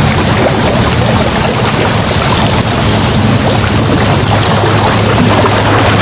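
Ocean sounds: a loud, steady rush of sea and waves with no breaks, over a low steady hum.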